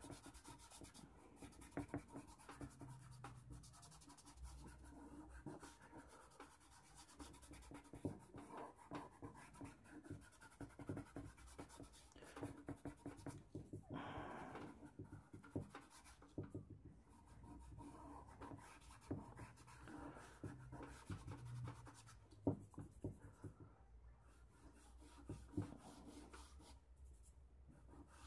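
Fingertips rubbing and smudging charcoal on drawing paper to blend it, a faint, irregular rubbing and scratching.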